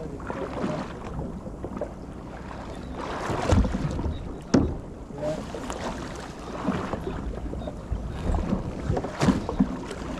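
A small boat at sea, with wind buffeting the microphone and a few sharp knocks, the loudest about four and a half seconds in.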